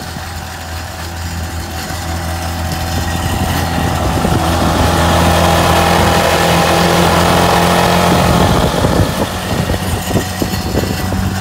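Sea-Doo GTI's Rotax 717 two-stroke twin idling steadily, freshly running after a carburettor rebuild and repeated cleaning of oil-fouled plugs. It grows louder through the middle as it is heard close to the open engine bay.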